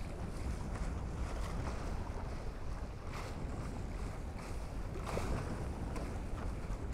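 Wind rumbling on the microphone over water rushing along the hulls of a sailing Tornado catamaran, with brief hissing splashes about three and five seconds in.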